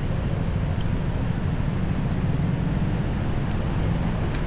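Steady low rumble of city street traffic, with a faint engine hum running through it.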